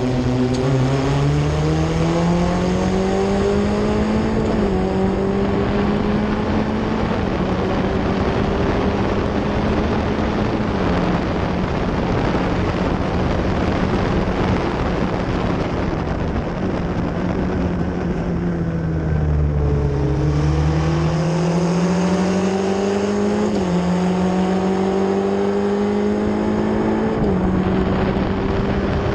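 F1600 formula race car's four-cylinder engine heard from on board, accelerating hard through the gears from the race start. The revs climb and drop sharply at an upshift about five seconds in, then hold high. Past the middle the revs fall away for a few seconds, then climb again with two more upshifts near the end.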